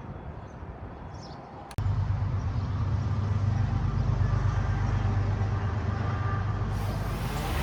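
Quadcopter drone motors and propellers running with a steady low hum, starting abruptly after a click about two seconds in.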